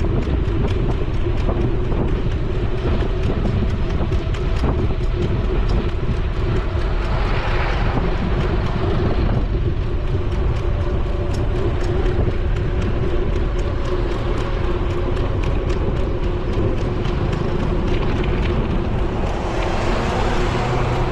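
Wind rushing over a bicycle-mounted GoPro, with steady road rumble as the bike rides along. Oncoming cars pass close by twice, swelling and fading about seven seconds in and again near the end.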